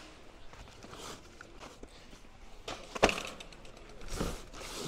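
Cardboard boxes being handled: a few light knocks, a sharp knock about three seconds in, and a short scraping rustle about a second later.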